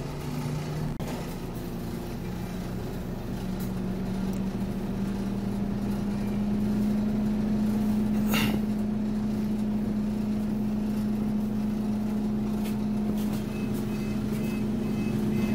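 Scania OmniCity double-decker bus heard from inside the lower deck, its engine and drivetrain running with a steady low drone. The drone climbs a little in pitch and grows louder over the first several seconds, then holds steady. A single sharp click or squeak comes about eight seconds in.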